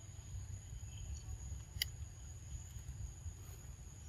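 Outdoor forest ambience: a steady high-pitched insect drone over a low rumble, with one sharp click a little under two seconds in.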